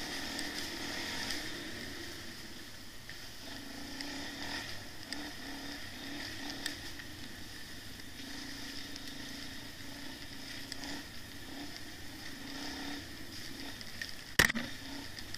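A bike being ridden along a dirt forest trail: steady rolling and rattling noise, then a couple of sharp knocks about fourteen seconds in.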